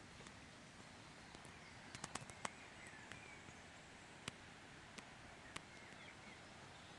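Faint forest ambience: the steady hiss of a distant mountain river with faint bird chirps. A few sharp clicks cut through it, a cluster about two seconds in, then single ones spread through the middle.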